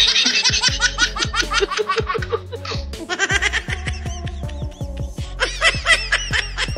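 High-pitched laughter in quick repeated ha-ha syllables, breaking off briefly twice, over background music.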